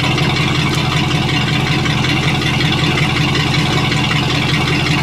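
Wake boat's inboard engine idling steadily just after start-up, drawing antifreeze through its hull water intake from a flush kit as it is winterized.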